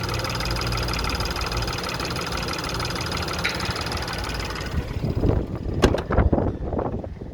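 Peugeot 208 hatchback's engine idling steadily, still running despite front-end collision damage. About five seconds in, the idle drops back under irregular rustling and knocks.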